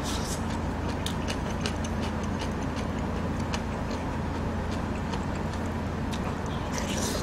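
Close-miked eating: many small wet mouth clicks from chewing, with light utensil taps, over a steady low hum. A short slurp comes right at the start and another near the end as food goes into the mouth.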